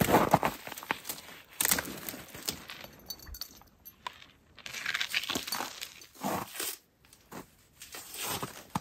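A dog working a long stick on frozen lake ice: the branch scrapes and knocks against the ice in irregular bursts, with a few sharp clinking taps.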